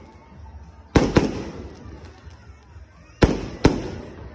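Aerial fireworks bursting overhead: two pairs of sharp bangs, one pair about a second in and another about three seconds in, each bang trailing off in a fading rumble.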